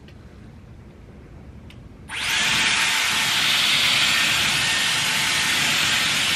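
Dyson Airwrap hair styler with a curling barrel attached, switched on about two seconds in after a faint click: its motor blowing a loud, steady rush of air that holds constant.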